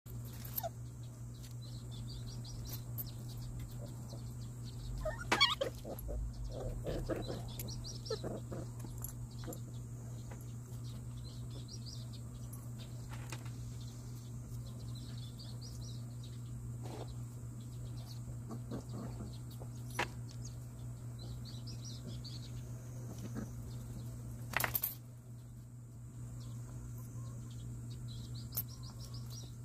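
Puppies play-fighting, with scuffles and a few sharp knocks, over a steady low hum and short high chirps that recur every second or two.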